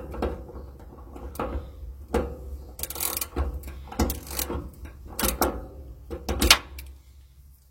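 Irregular mechanical clicks and clunks, about one every half second to a second, over a steady low hum; they stop about seven seconds in.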